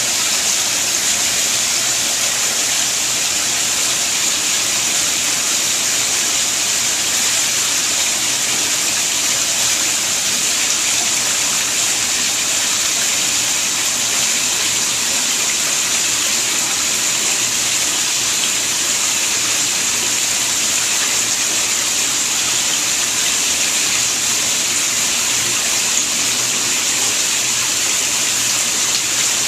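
Steady, even rush of running water in a koi holding tank.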